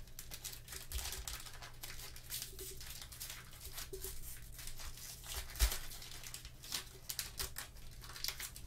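Plastic trading-card pack wrapper crinkling and tearing as it is ripped open and peeled off the cards, with a dull thump about five and a half seconds in.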